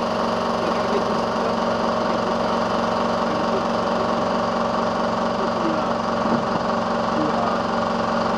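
Small engine running steadily at a constant speed, with a few faint knocks over it.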